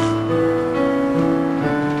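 Piano playing slow, gentle music with held notes that move every half second or so.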